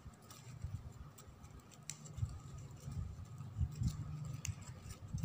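Faint rustling and scattered light ticks of ribbon strands being pulled tight by hand around a small woven ribbon ball, over a low rumble of handling noise.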